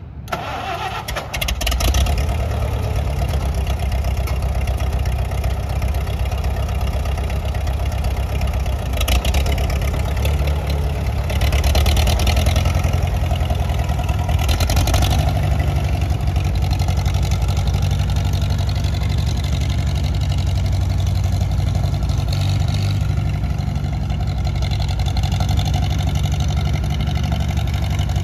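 1955 Farmall 300 tractor's four-cylinder gasoline engine running as the tractor drives, a steady low drone that swells briefly a few times.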